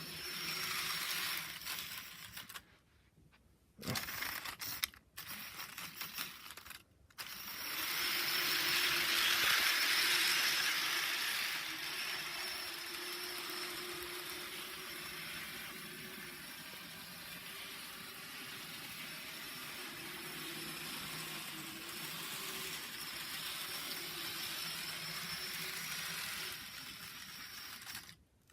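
Model train locomotive running on its track: the small electric motor and wheels make a steady whirr with a faint hum. It cuts out briefly a few times in the first seven seconds, then runs on.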